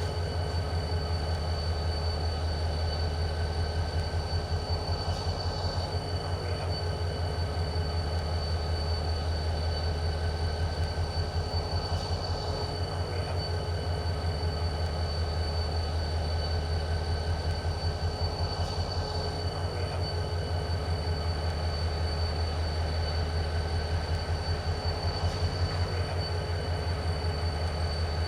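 HO-scale model diesel locomotive running through the layout, its onboard sound playing a steady diesel engine throb, with a steady high whine over it.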